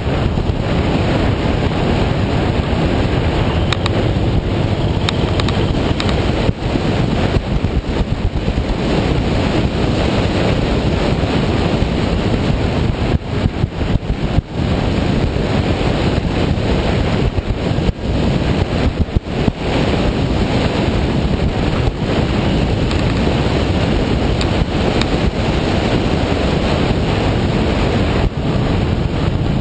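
Wind rushing over the microphone of a camera on a moving motorcycle, mixed with engine and tyre noise on the road, easing for a moment a few times.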